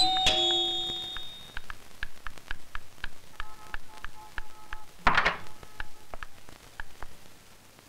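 An electric doorbell's two-tone chime dying away, followed by a quick run of light footsteps, about four a second, hurrying down wooden stairs and across a room. A short, louder burst comes about five seconds in.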